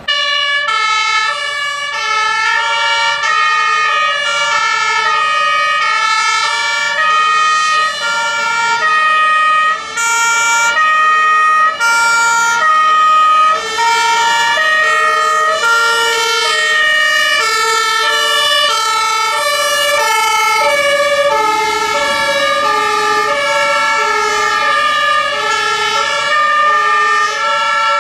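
Two-tone sirens (Martinshorn) of several German fire engines sounding together, out of step with one another, so the high-low pairs overlap into a dense alternation. They start abruptly.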